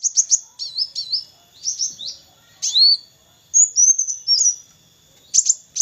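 A kolibri wulung sunbird singing: quick groups of high, thin chirps, many sweeping down in pitch, broken by short pauses.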